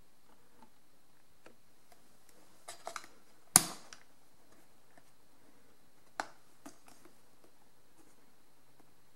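Latch of a rugged plastic hard case being worked open: a few light handling clicks, then one sharp, loud snap about three and a half seconds in. A second, quieter click follows a few seconds later.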